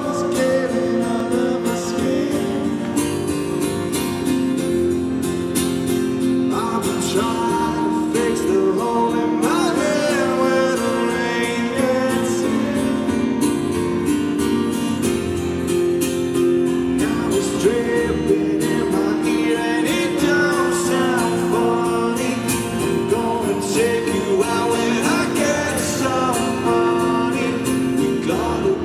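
A man singing live to his own strummed acoustic guitar, amplified in a large arena. The guitar plays alone at first, and the voice comes in about six seconds in, in phrases with pauses between them.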